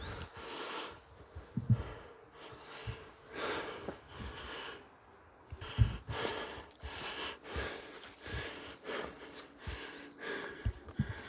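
A person breathing heavily close to the microphone, in repeated breaths, with irregular low thumps in between.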